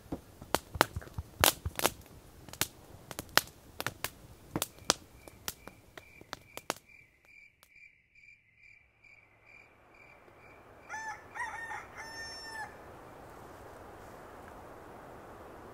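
Wood fire crackling with sharp pops in a folding steel Firebox stove for the first six or seven seconds. After the fire sounds stop, a faint high note repeats about twice a second, then a short run of pitched calls comes about eleven seconds in, followed by a steady hiss.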